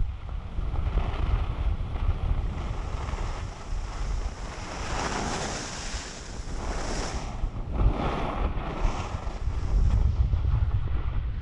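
Wind buffeting the camera microphone while skiing downhill, with the hiss and scrape of skis on groomed snow swelling a few times, strongest around the middle.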